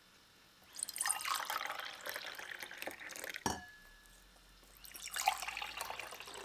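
A drink poured from a pitcher into a glass tumbler, a splashing stream, then a short knock about three and a half seconds in, and after a brief pause a second pour into another glass.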